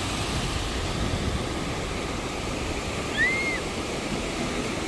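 Sea waves washing on the beach: a steady rushing wash of surf. A brief high chirp about three seconds in.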